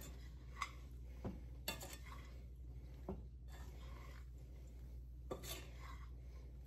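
A utensil stirring dry, seasoned rotini pasta in a stainless steel skillet: soft scraping with a few light clinks against the pan, over a faint steady low hum.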